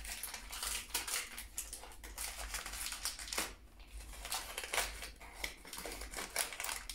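Brown kraft paper wrapping crinkling and rustling as a small parcel is unwrapped by hand, in a string of irregular crackles.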